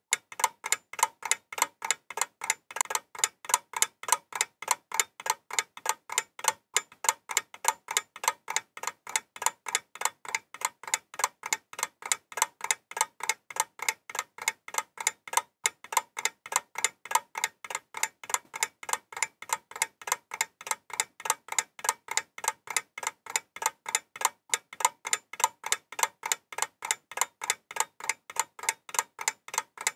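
Steady, fast ticking: sharp, even ticks several times a second, running without a break.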